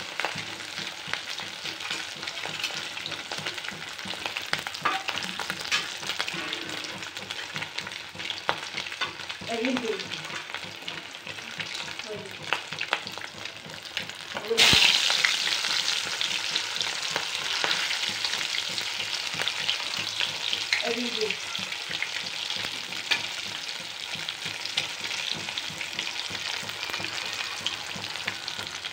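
Rohu fish steaks frying in hot oil in a kadai: a steady sizzle full of small crackling pops. About halfway through another piece goes into the oil and the sizzle suddenly gets louder and hissier, then stays that way.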